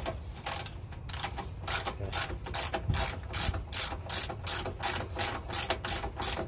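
Ratchet socket wrench clicking steadily as a fastener is turned, about three to four clicks a second.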